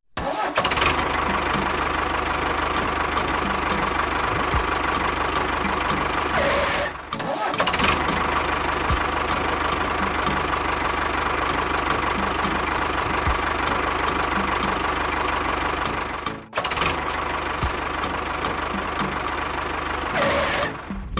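A small motor running steadily with a whining tone, in three long stretches broken by brief dips.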